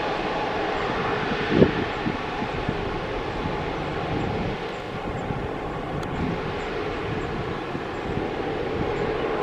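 Boeing 777-300ER jet engines running, a steady rushing engine noise, with one brief knock about a second and a half in.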